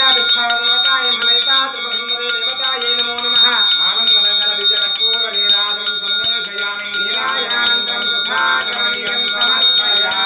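A puja hand bell rung rapidly and without pause during aarti, its high ringing steady throughout, with a voice singing over it.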